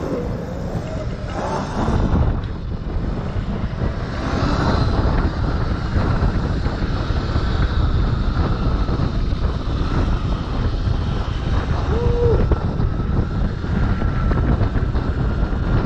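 Wind buffeting the microphone of an electric dirt bike riding fast on the road, a loud steady rush with a faint steady whine running underneath. A brief short tone sounds about twelve seconds in.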